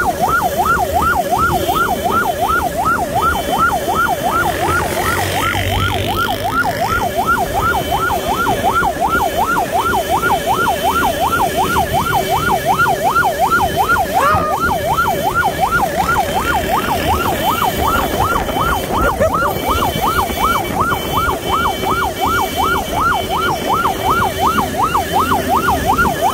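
Electronic yelp siren on a motorcycle ambulance, its pitch sweeping rapidly up and down about three times a second, over the hum of motorcycle engines and traffic.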